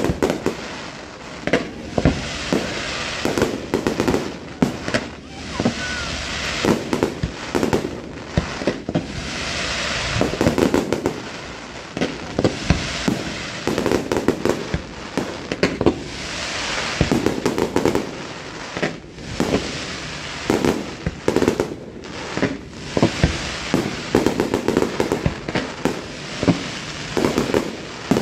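Aerial fireworks barrage: shell bursts going off rapidly one after another without pause, mixed with the crackling of crackle and glitter stars.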